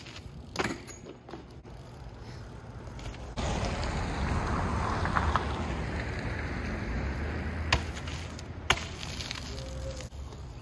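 BMX bike tyres rolling on asphalt with a steady rushing, then two sharp knocks about a second apart as the bike drops off a ledge and lands.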